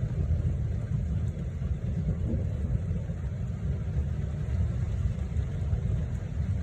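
Steady low rumble of a squall-line thunderstorm, with storm wind buffeting the microphone.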